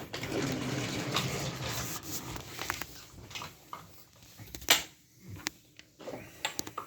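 Wooden toy train pieces and track clicking and knocking together as they are handled, with one sharper knock about two-thirds of the way in.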